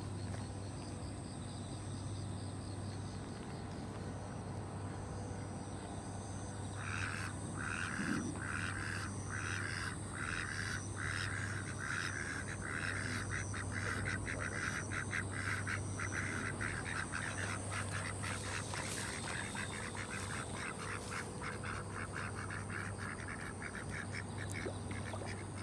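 A long run of rapid, repeated animal calls, starting about seven seconds in and growing sparser near the end, over a steady low hum.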